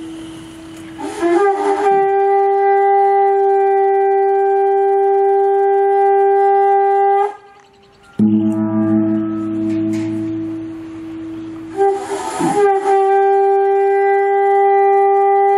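Ceremonial conch shell horn blown in two long, steady, loud notes, the first lasting about six seconds. Each note starts with a brief wavering attack before settling. Between the notes a lower, steady ringing tone with a pulsing hum is heard.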